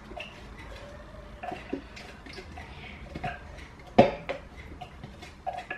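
A spoon scraping and clinking as food is scraped from a small container into a stainless steel pot, with one sharp knock about four seconds in.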